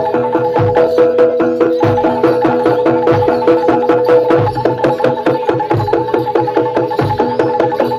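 Jaranan accompaniment from a gamelan ensemble: fast, even metallophone notes ringing over busy hand-drum strokes, with a deep drum beat about once a second.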